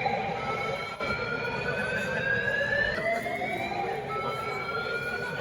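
Building fire alarm sounding: repeated tones that each rise slowly over a couple of seconds and then start again lower, several overlapping out of step.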